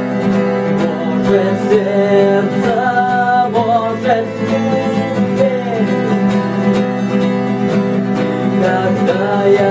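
Music: an acoustic guitar playing an instrumental passage of a song, with no sung words.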